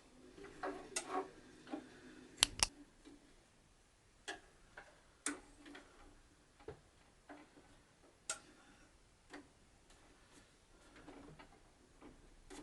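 Irregular clicks and light knocks from a Singer 8280 sewing machine being handled, with two sharper knocks close together about two and a half seconds in. There is no steady running rhythm.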